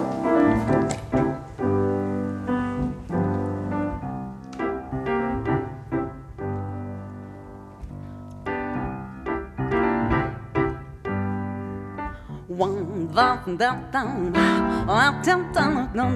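Upright piano playing a slow introduction of struck chords that ring on, quieter for a stretch in the middle. A voice comes in over the piano near the end.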